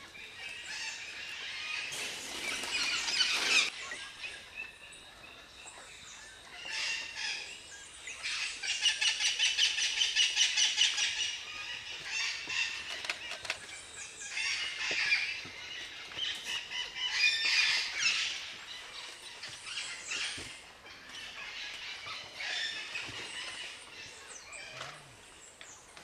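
Puerto Rican parrots calling in loud bursts of raucous squawks, including a long fast run of repeated notes partway through, as the birds fly from the release aviary.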